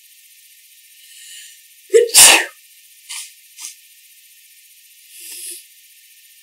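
A person sneezing once, loudly, about two seconds in, with a faint breathy sound just before it. Two short noises and a longer breathy sound follow.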